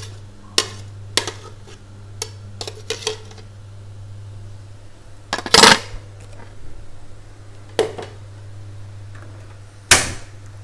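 A metal spoon tapping and scraping against a blender jug over a steel pot, a quick series of sharp taps, then a louder clatter about halfway through. Near the end a sharp click with a short trailing rush as the gas stove's knob is turned and the burner lights. A low steady hum sits underneath.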